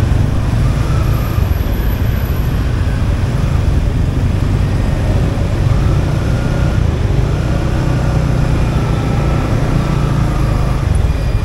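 Motorbike riding through city traffic: engine and road noise with a heavy, steady low rumble, picked up by a chest-worn action camera's microphone.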